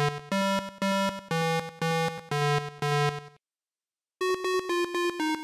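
Electronic synthesizer tune in a buzzy, 8-bit style: a string of even notes, about two a second, that stops about three and a half seconds in. After a short silence, a new, quicker synth phrase starts near the end.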